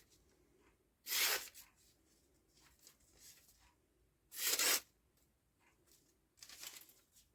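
Flissa hollow-ground fixed-blade knife slicing through paper three times, each cut a short swish and tear, testing its untouched factory edge.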